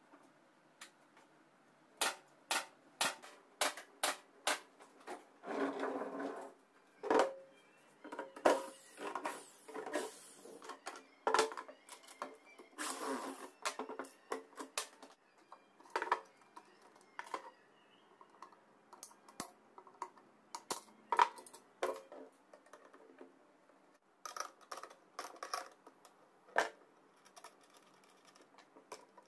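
Irregular clicks and knocks with a few short scraping stretches, the sound of parts and tools being handled during assembly work.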